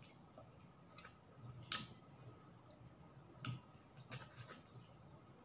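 A person chewing food, faint, with four or so soft lip smacks and mouth clicks spread through the pause.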